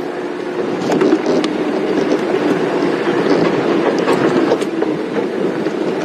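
Safari game-drive vehicle running on a bush track: steady engine and road noise with scattered clicks and rattles.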